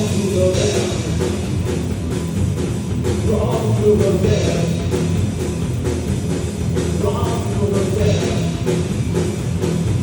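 Rock band playing live: a drum kit keeping a steady beat under a sung vocal line.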